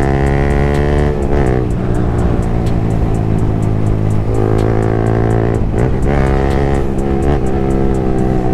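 Yamaha MT-15's 155 cc single-cylinder engine through an aftermarket Akrapovic exhaust, loud under way at fairly steady revs. The revs dip briefly and pick up again about a second in and near six seconds, as with a gear change or a lift of the throttle.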